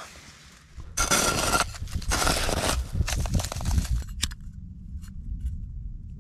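Scraping, crinkling handling noises from a small metal camp stove and its fuel being set up by hand: three noisy bursts in the first four seconds, the first and loudest about a second in. A few faint clicks follow, over a low steady rumble.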